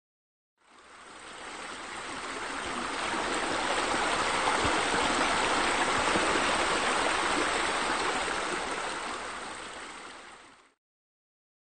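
Flowing water sound, an even rushing of water that swells up over the first few seconds, holds, then fades away and cuts off shortly before the end.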